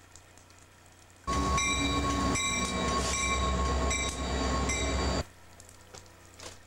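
A CSX freight train passing close: a loud low rumble with a locomotive horn sounding over it, its higher notes breaking off and returning. It cuts in suddenly about a second in and stops just as suddenly about four seconds later.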